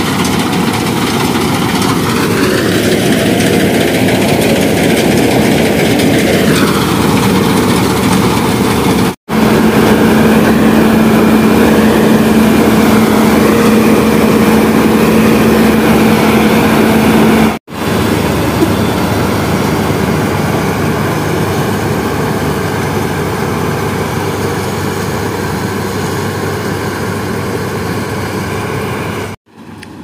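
New Holland combine harvester running close by as it cuts ripe paddy, its engine and threshing machinery making a loud, steady drone. The sound breaks off for an instant twice.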